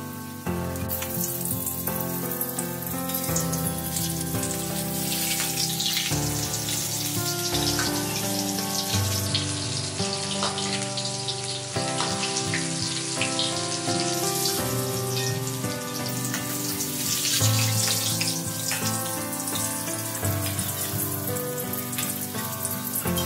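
Tofu frying in hot oil in a wok, a steady sizzle, with background music playing over it.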